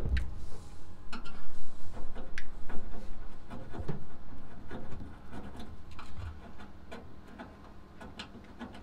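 Scattered clicks, taps and light knocks with some rubbing as a gloved hand works a new sheet-steel floor panel against a classic Mini bodyshell, louder over the first few seconds and lighter after.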